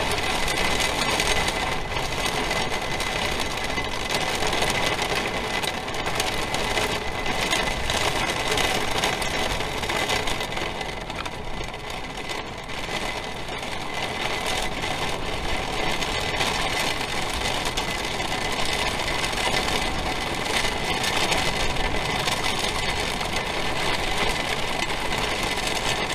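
Heavy thunderstorm rain and wind beating on an RV, heard from inside as a steady, dense rush of noise.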